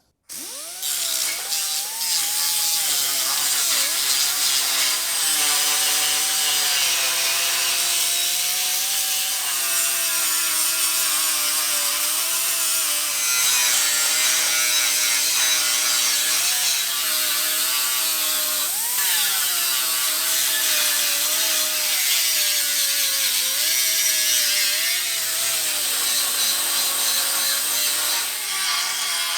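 Electric grinder running under load against metal, a continuous whine that sags and recovers in pitch as it is pressed in, over a harsh grinding hiss. It is grinding to clean up after the TIG tungsten stuck in the weld.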